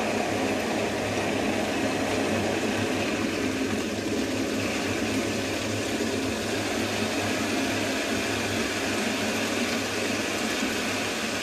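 Gas central-heating boiler running after firing from cold: a steady whir with a low hum. It runs on without cutting out as the water heats, circulating freely after a power flush.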